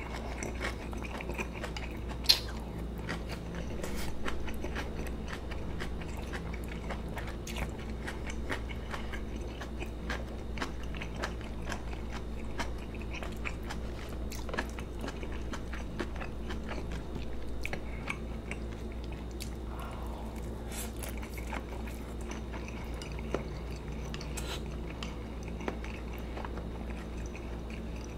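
Close-miked chewing of kimchi, braised fish and rice, with wet mouth sounds and many small clicks. A single sharp click about two seconds in.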